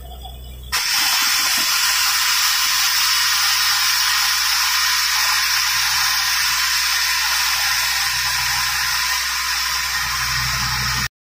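Loud steady hiss and gush of water and rock slurry blasting out of a borewell around the drill rod, driven by the drilling rig's compressed air. It starts suddenly about a second in and cuts off sharply near the end.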